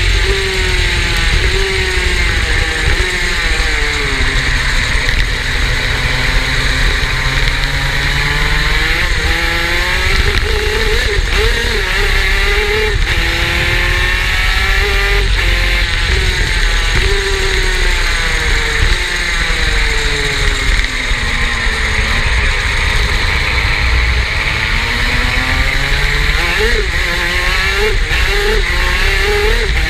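Superkart's two-stroke engine under way, its note climbing as it revs up and dropping back off the throttle over and over, every few seconds.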